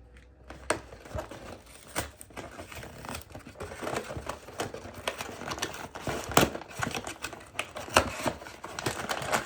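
A sealed cardboard blind box being opened by hand, with its packaging crinkling. There is a steady run of small clicks, scrapes and rustles that grows busier about four seconds in.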